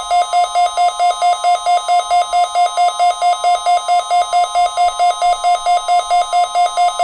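Weather radio receiver's electronic alert alarm beeping rapidly, about four beeps a second, with a fainter steady higher tone beneath. It starts abruptly and cuts off after about seven seconds: the receiver sounding off as it picks up an Emergency Alert System Required Weekly Test.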